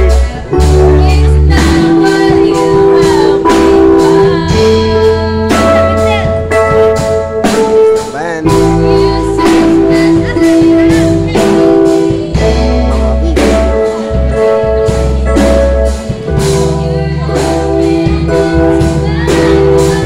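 Live party band music: a Korg X5 keyboard playing sustained chords over a deep bass line, a drum kit keeping a steady beat, and a voice singing along.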